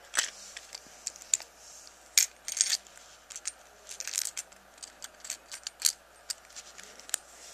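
Small hard Beyblade parts, plastic and metal, clicking and tapping against each other as they are handled: an irregular run of sharp clicks.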